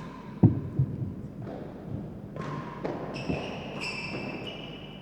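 Real tennis rally: the hard ball struck by rackets and knocking off the court's walls and floor, a string of sharp knocks, the loudest about half a second in. High-pitched squeaks sound over the second half.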